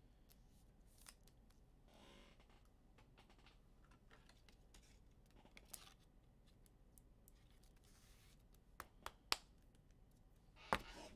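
Near silence with faint clicks and rustles of trading-card packs and cards being handled. There are a few sharp clicks about nine seconds in and a louder one near the end.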